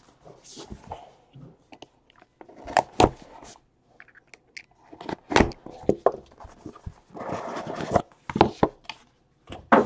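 Utility knife slitting the plastic shrink wrap on a cardboard trading-card box, with the wrap rustling and a handful of sharp taps and knocks as the box is handled. The longest rustle comes a little after halfway.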